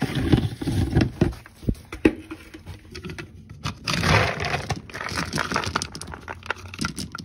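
Dry dog kibble rattling and scraping in a plastic food bin as a plastic scoop digs into it, with sharp clicks and clatters of plastic throughout. It is busiest in the first second and again about four seconds in.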